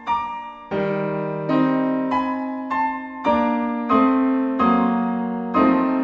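Background piano music: slow, evenly paced notes, each struck and then ringing and fading.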